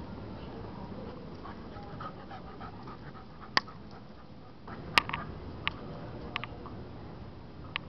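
A pet dog panting steadily, with a few sharp clicks, the loudest about five seconds in.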